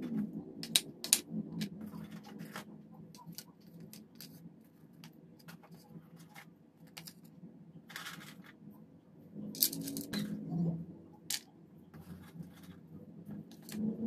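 Scattered light clicks and taps from hands handling clear plastic food containers and setting crackers and chocolate on a wooden serving board, with a couple of brief rustles.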